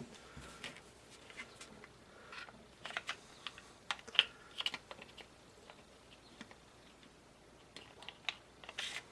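Scattered light clicks and scrapes from a Glock 19 Gen 4 pistol's slide and polymer frame being handled and fitted back together during reassembly. There is a cluster of clicks in the middle and a few more near the end.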